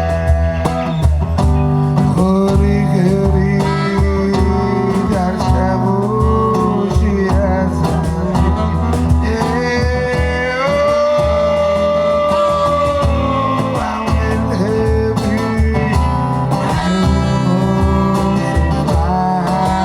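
Live band music of Georgian songs, with a pulsing bass and guitar under a lead melody that rises into a long held note about halfway through.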